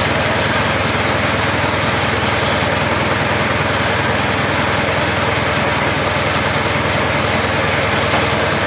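Mitsubishi 4D30 four-cylinder diesel engine running steadily. The owner finds its valve clearance too wide and hears it as a slight valve clatter.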